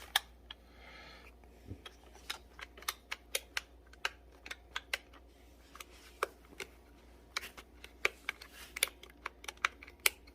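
Light, irregular plastic clicks and taps from handling the steering wheel's switch buttons and trim parts, sometimes several clicks a second.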